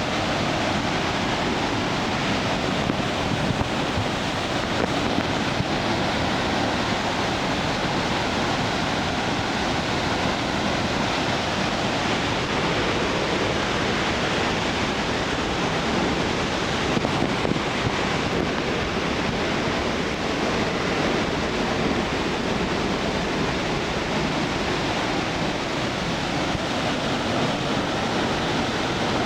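Ontaki, the main fall of Nunobiki Falls, running high after a typhoon: a loud, steady rush of falling water with no let-up.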